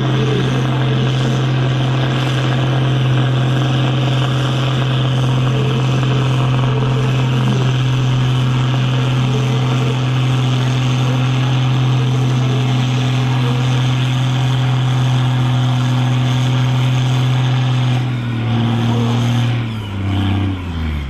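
Diesel engine of a red Case IH tractor pulling the weight sled in a tractor-pulling run, held at steady high revs. Its pitch falls in steps over the last few seconds.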